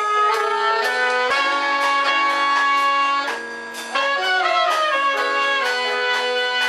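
Live band playing an instrumental passage: alto saxophone and trumpet play long held notes together over the rhythm section, with a brief drop in level a little past three seconds.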